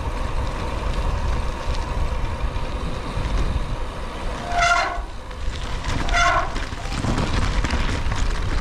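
A bicycle's front brake squealing twice, each time briefly and about a second and a half apart, over steady wind noise on the microphone. The squeal comes from pads contaminated with oil, due for replacement.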